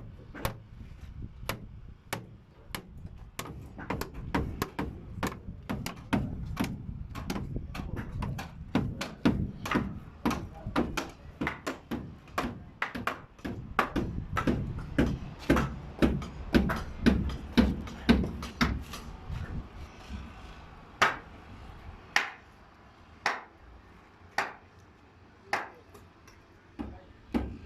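Hammers striking timber over and over, several irregular blows a second, typical of nailing rooftop formwork together; from about two-thirds of the way in the blows thin out to single sharp strikes about once a second.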